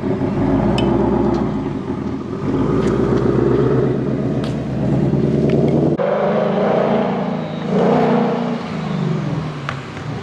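Ford Mustang Dark Horse's 5.0-litre V8 breathing through a Ford Performance X-pipe, running close by. After a cut about six seconds in, the car is heard driving up, its exhaust note rising and then falling off.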